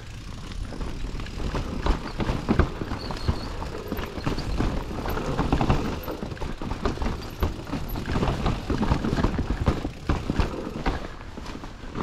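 Mountain bike rolling down a rocky, stepped trail: tyres running over rock with many irregular knocks and clatter from the bike.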